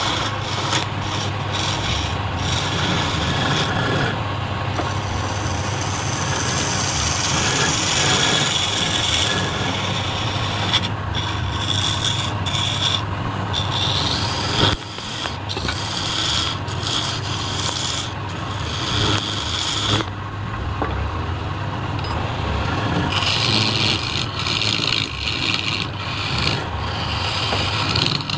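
A hand-held turning chisel cutting into a spinning wooden workpiece on a lathe: a continuous scraping, shaving sound over the lathe's steady hum. The cutting noise drops off briefly several times where the tool eases off the wood, most clearly about two-thirds of the way through.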